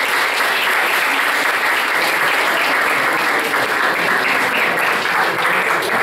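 Audience applauding, a steady dense patter of handclaps.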